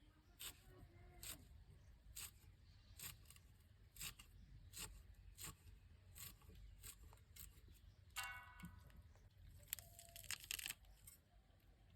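Faint kitchen food-preparation sounds: soft, irregular clicks and snaps about every half-second to second, a short squeaky scrape a little past the middle, and a brief tearing rasp near the end.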